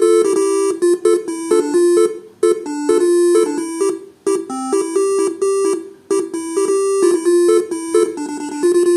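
Basuri telolet horns driven by a Faniatech R3 module, playing a telolet melody. The notes step quickly between a few pitches, in short phrases with brief gaps about every two seconds.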